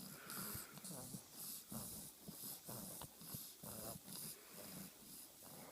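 Newborn baby breathing through a stuffy, congested nose from a cold: faint, quick snuffly breaths, about two or three a second.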